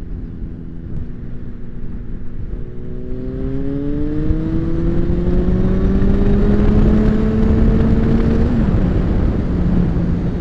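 Motorcycle engine accelerating, its pitch rising steadily for about six seconds, then a sharp dip at a gear change near the end, with rushing wind noise growing as speed builds.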